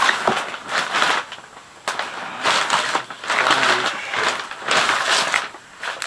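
Packing material rustling and crumpling as it is dug out of a cardboard shipping box during unpacking, in four or five bursts with short pauses between.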